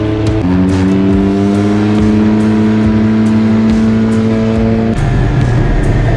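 Arctic Cat Wildcat Trail side-by-side's engine and slip-on exhaust pulling steadily at road speed. Its pitch drops about half a second in, then rises slowly. Near the end it turns rougher as the throttle changes.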